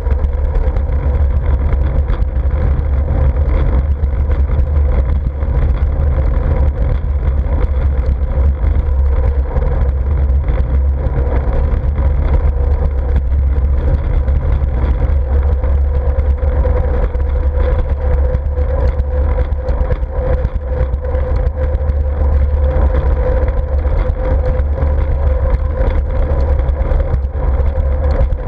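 Wind rumbling steadily over a bike-mounted GoPro microphone while cycling, with a steady hum from the moving bicycle above it.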